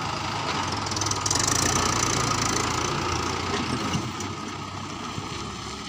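Diesel engine of a Mahindra Yuvo Tech+ tractor running as it pulls a loaded trolley past, loudest about one to two seconds in and then fading as it moves away.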